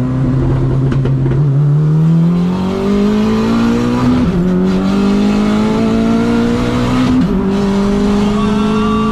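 Turbocharged engine of an engine-swapped Honda Brio at full throttle, heard from inside the cabin with the windows up. The engine note climbs steadily through the gears, with two quick flat-foot upshifts, about four and seven seconds in, where the pitch drops sharply and the power cuts for an instant before climbing again.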